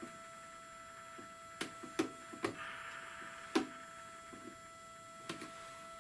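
Several sharp clicks, the loudest about two and three and a half seconds in, with a hiss of about a second between them, from an air pressure generator being worked to lower the pressure on an aircraft pressure rate sensor. A steady high-pitched hum lies underneath.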